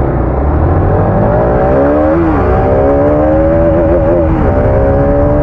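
Single-cylinder sport motorcycle engine pulling away and accelerating, its note rising through the revs. It drops twice, about two seconds in and again about four and a half seconds in, as it shifts up a gear, then holds steady. Wind rumble on the microphone underneath.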